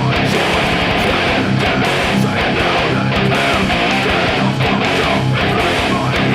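Loud electric guitar riffing in a groove metal song, played over the full band recording with steady, repeated hits running through it.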